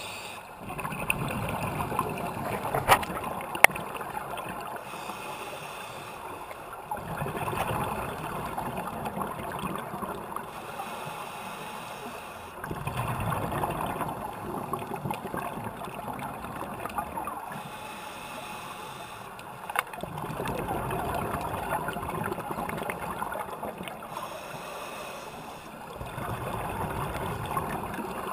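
Scuba diver breathing through a regulator underwater, heard through a GoPro's waterproof housing: bubbly, rushing exhalations that swell about every six seconds, with a few sharp clicks.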